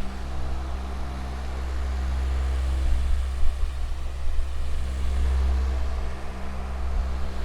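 Electric fan with metal blades running: a steady rush of air over a low motor hum, dipping slightly just after the start and rising again near the end.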